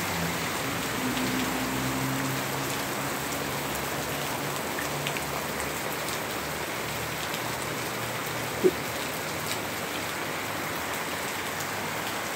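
Heavy rain falling steadily on pavement, plants and a flooded road. A faint low hum runs through the first few seconds, and there is a single short knock about two-thirds of the way through.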